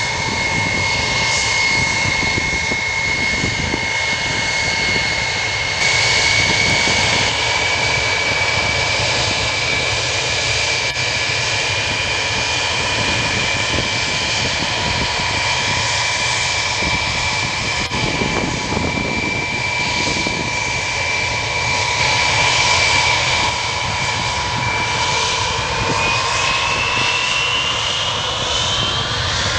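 Ilyushin Il-76TD's four Soloviev D-30KP turbofans running at low taxi power, a steady high whine over engine rumble. About four seconds before the end the whine rises in pitch as the engines spool up.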